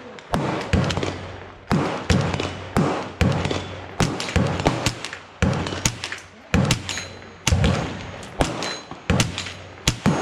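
German Sport Guns GSG-16 semi-automatic .22LR carbine firing a steady string of shots, about two a second. The rifle has an integral barrel shroud that the owner says makes it super quiet.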